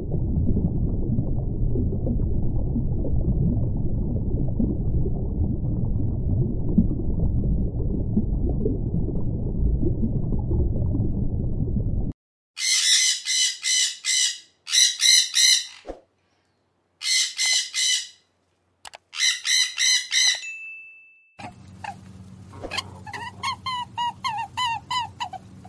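Muffled low underwater water noise for about twelve seconds, stopping abruptly. Then groups of quick, shrill, bird-like chirps with short gaps between them, and near the end a faster run of chirps over a low hum.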